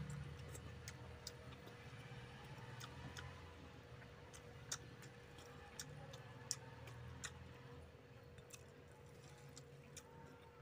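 Faint eating sounds: irregular small clicks and smacks of chewing, and fingers mixing rice with curry, with a few sharper ticks and a faint steady hum underneath.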